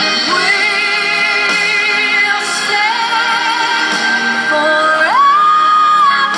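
Recorded song with a female singer, held notes with vibrato over a backing track, gliding up to a high sustained note about five seconds in.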